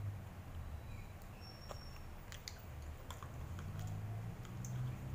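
Scattered light clicks and taps of metal spoons against a plastic ice cream tub, over a low steady rumble.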